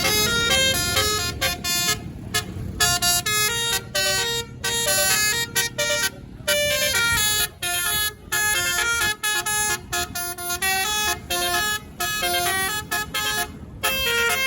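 Tour bus's 'telolet basuri' multi-tone musical horn playing a fast tune of short stepped notes with brief breaks between phrases, over the rumble of the bus engine.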